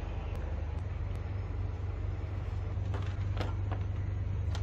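Battery-powered 12 V oil extractor pump motor running with a steady low hum, ready to suck the engine oil out through the dipstick tube. A few light clicks and knocks from handling the hose come about three seconds in and near the end.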